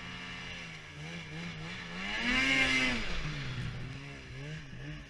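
Snowmobile engine running under the rider's throttle in deep snow, its pitch wavering up and down. About two seconds in it revs up louder and higher, then eases back.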